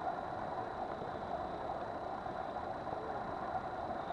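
A boat under way: its engine running steadily, with water rushing along the hull.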